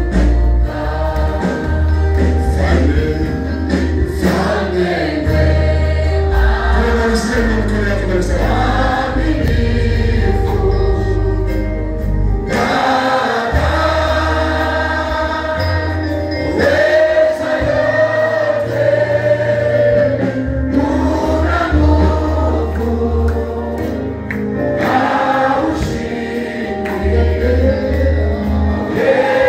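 Gospel worship song sung by a congregation and a worship team with microphones, with women's voices to the fore and low bass notes moving in steps underneath.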